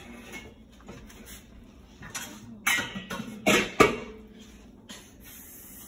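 Clatter and crinkle of a disposable aluminium foil tray being handled: a few sharp knocks about two seconds in, the loudest near the four-second mark, then quiet handling.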